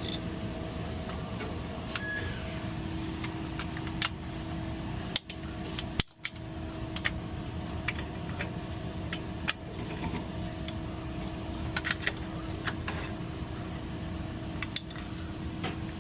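Scattered sharp clicks and light knocks of parts and tools being handled, over a steady electrical hum.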